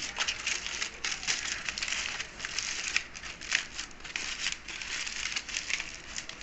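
Aluminium foil crinkling and rustling as it is folded by hand around pieces of chicken, an irregular, unbroken run of crackles.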